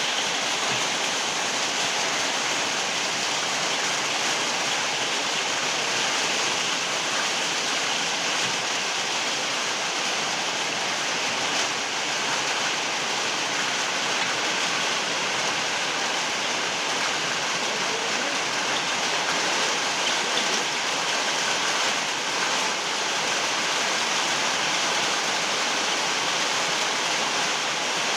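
Very heavy rain falling steadily, a dense even hiss without distinct drops or thunder.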